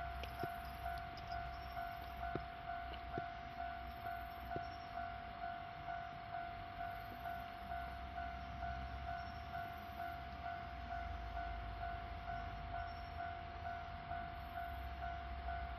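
Japanese railway level-crossing warning bell ringing in a fast, regular two-tone clang. A low rumble builds in the last five seconds as a train approaches.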